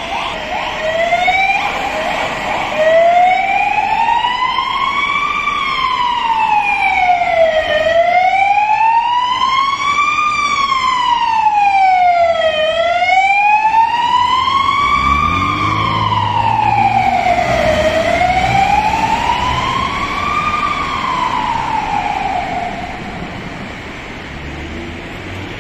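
Ambulance siren on a slow wail, its tone rising and falling about every five seconds, with a low engine sound beneath it in the second half. The siren fades out shortly before the end.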